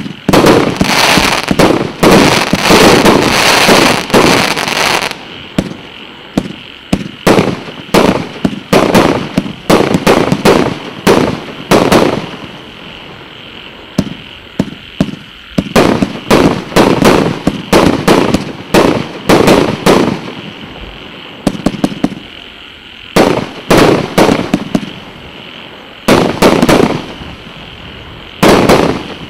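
A 200-shot, 1.25-inch consumer firework cake (fireworks battery) firing salvos of shells that pop and crack. It fires a dense barrage for the first few seconds, then keeps going in quick volleys of sharp cracks with short lulls between them.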